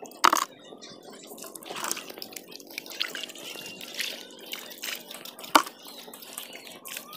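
Shallow water splashing and wet mud squelching as bare feet and hands work over a tidal mudflat to pick up shellfish, with a few sharp clicks, the loudest about a third of a second in and again past five seconds.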